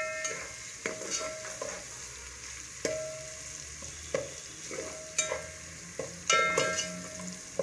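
Oil sizzling as sliced onions, whole spices and garlic–green chili paste fry in an aluminium pot. A metal spoon stirs them, knocking against the pot about once a second, and each knock rings briefly.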